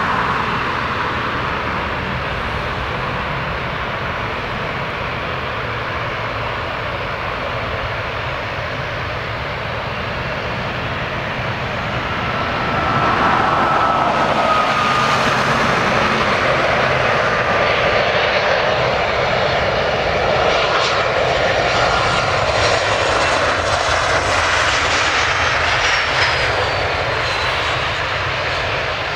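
Twin-engine jet airliner on final approach to land with its gear down, its engines' rush and whine growing louder about halfway through as it comes closer. Near the end a high whine falls in pitch as the aircraft goes past.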